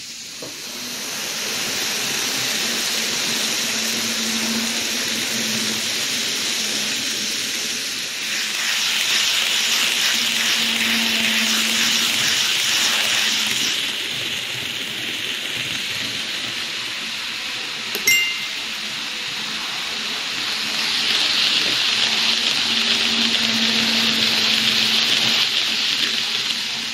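N gauge model trains running on track: steady rolling noise from wheels on the rails with a faint low motor hum, growing louder twice as a train passes close by. A single sharp click about 18 seconds in.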